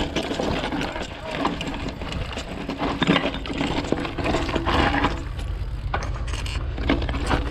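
Mountain bike riding over a rough dirt and gravel trail: tyres crunching, with the frame and parts rattling and clicking over the bumps. A low wind rumble on the camera's microphone grows stronger about five seconds in.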